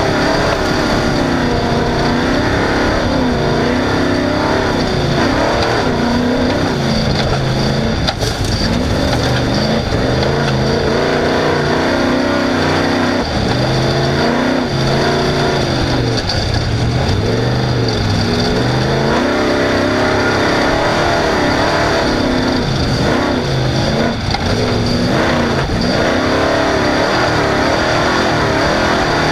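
Off-road race vehicle's engine running hard at racing speed, revs swinging up and down every second or two.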